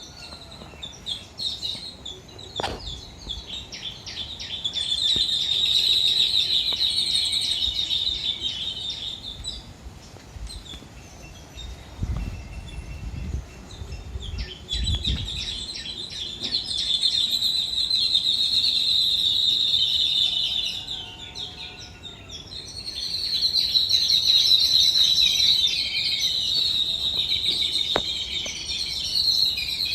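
A flock of small birds calling together in a dense, rapid chatter of high chirps, swelling in bouts with short lulls between them: the birds calling one another to gather.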